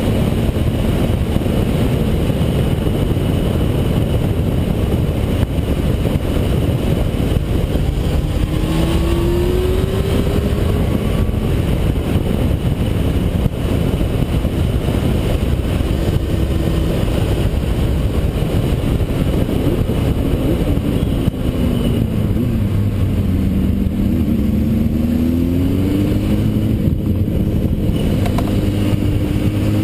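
Yamaha DT 200R two-stroke single-cylinder motorcycle ridden hard on a track, heard onboard under heavy wind rush on the microphone. The engine note climbs under acceleration about ten seconds in, drops about two-thirds of the way through, then climbs and holds high near the end.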